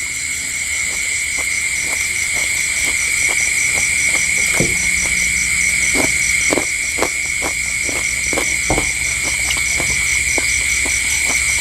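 Night insects such as crickets calling in chorus: a steady high trill under a second, higher one that pulses about five times a second. Soft scattered clicks sound underneath.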